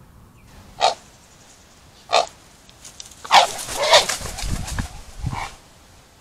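Harsh, barking animal calls: two short ones about a second apart, then a longer run of several calls close together near the end.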